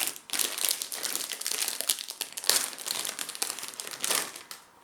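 Plastic snack packet crinkling and crackling as it is handled, in irregular bursts that ease off near the end.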